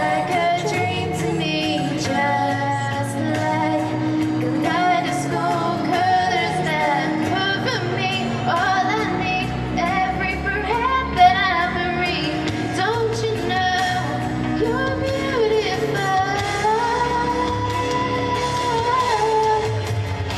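A female singer singing a pop ballad over instrumental accompaniment, with long sliding and held notes; a long held note comes near the end.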